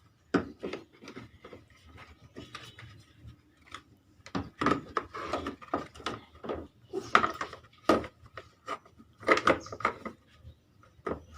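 Plastic radiator cover of a Honda Vario scooter being handled and fitted back in place: irregular clicks, knocks and scraping, coming thicker from about halfway.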